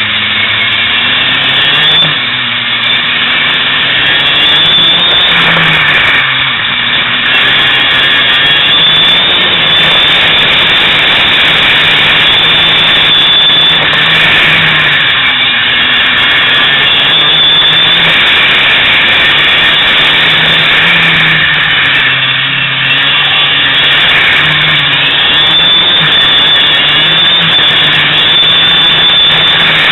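Racing kart engine heard onboard at full race pace, its revs rising on the straights and dropping briefly every few seconds as it slows for the corners, then climbing again.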